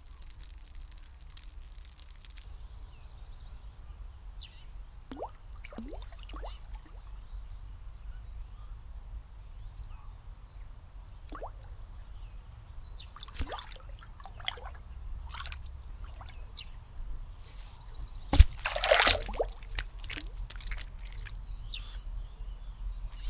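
Small water drips and plops as a fishing float bobs on a pond, then, late on, one loud splash as the line is yanked out of the water with a fish on it.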